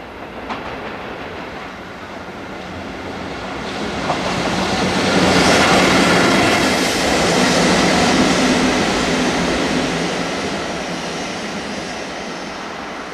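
Electric freight locomotive hauling a freight train passing close by on the rails. The rumble of wheels and cars builds, is loudest about five to nine seconds in, then slowly fades.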